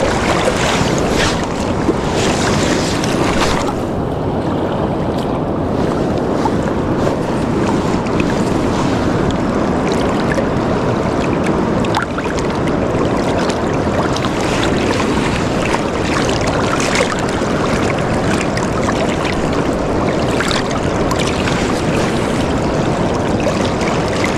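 Steady rush of river water, with wind buffeting the microphone.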